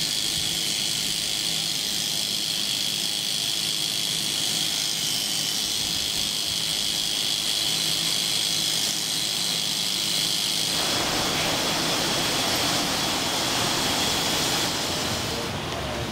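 Electric livestock clippers running with a steady high-pitched motor whine over a hiss, while they trim a dairy cow's hair. A rougher noise joins about two-thirds of the way through, and the whine cuts off near the end.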